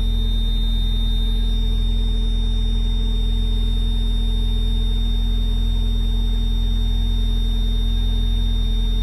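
Mazda MX-5 Miata's 1.6-litre four-cylinder engine idling steadily while still warming up from a cold start, heard from inside the cabin.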